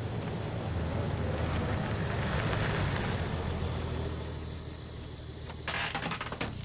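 Tow truck's engine running as it rolls up and stops, swelling louder over the first few seconds and then easing off. Near the end comes a short loud clatter as the cab door is opened.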